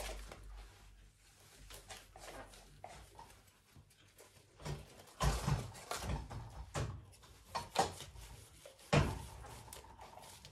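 A series of irregular clicks and knocks, like things being handled and set down, with louder thumps about five and nine seconds in.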